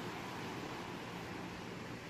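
Ocean surf washing as a steady, even rush of noise, with no single wave break standing out.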